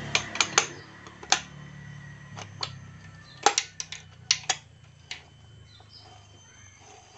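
Metal engine parts clinking as a motorcycle clutch housing is fitted into the crankcase: about a dozen sharp clicks in loose clusters over the first five seconds, then only a faint hum.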